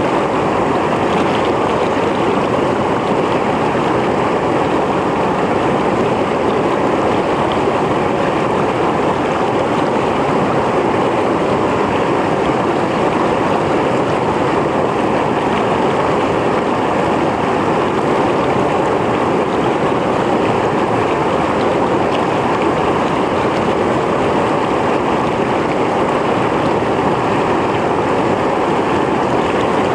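Mountain stream flowing steadily over rocks, an even rushing and gurgling of water.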